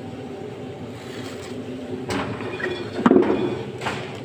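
A steady low mechanical hum, with handling noises from about two seconds in: a cardboard box and a plastic spice jar being moved on a stone countertop. The loudest is a knock about three seconds in.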